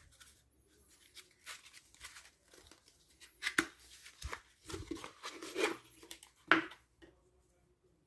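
Handling noises: irregular rustling and scraping with a few sharp clicks, busiest in the second half and stopping about a second before the end.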